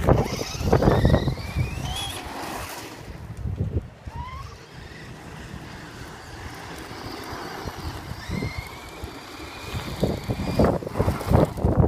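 Electric motor of a radio-controlled car whining, its pitch gliding up several times as it speeds up, over tyre noise on gravel. Loud wind gusts buffet the microphone near the start and near the end.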